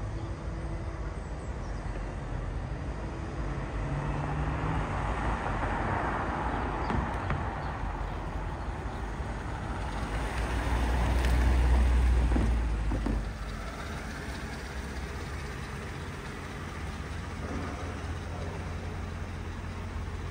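Mercedes C43 AMG's 4.3-litre V8 engine running as the car drives up, growing louder to a low, rumbling peak about twelve seconds in. The sound then drops suddenly to a steady low hum.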